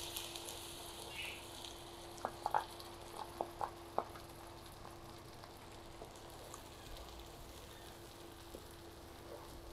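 Blended onion, garlic, ginger and green chilli paste sizzling in hot oil, the sizzle fading away within the first couple of seconds as it is stirred with a wooden spatula. A few light knocks between two and four seconds in as the paste is scraped from a plastic bowl into the pan, over a faint steady hum.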